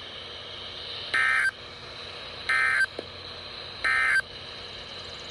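Emergency Alert System end-of-message data tones: three identical short warbling digital bursts, each under half a second, about a second and a half apart, over a steady background hiss.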